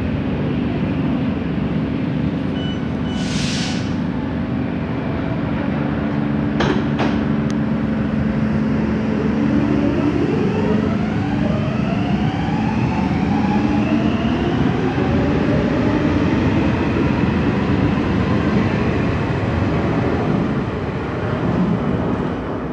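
Helsinki metro train pulling out of the station: a steady low rumble, a short hiss a few seconds in and a couple of sharp knocks, then the traction motors' rising whine as it accelerates away, fading near the end.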